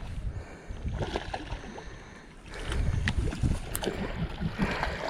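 Wind rumbling on the microphone, with water splashing and a few sharp clicks while a hooked largemouth bass is fought in.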